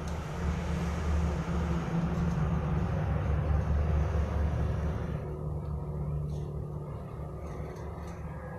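A low, steady rumble that fades away from about halfway through.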